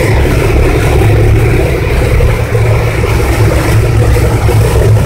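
Boat engine running steadily under way, a constant low drone, with water rushing and splashing along the hull.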